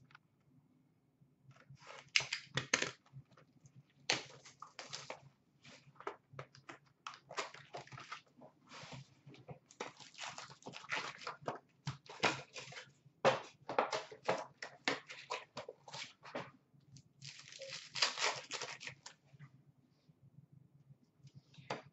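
Trading card pack wrappers being torn open and handled: irregular crinkling and crackling, with a longer, denser stretch of crinkling near the end.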